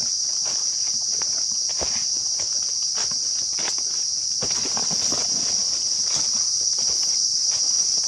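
Steady high-pitched drone of forest insects, with irregular footsteps crunching through dry leaf litter and brushing past undergrowth.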